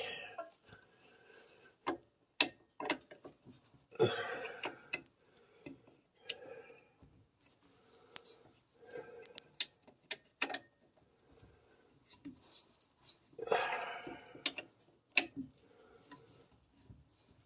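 Scattered metallic clicks and clinks of wrenches on a nut and bolt at the driveshaft, as two wrenches are fitted and worked to break it loose. Two short scuffing noises come about four seconds in and again near the end.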